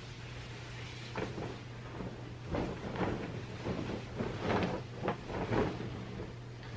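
Bedding being shaken out and flung over a mattress: a run of fabric swishes and flaps, several in quick succession, starting about a second in and stopping near the end, over a low steady hum.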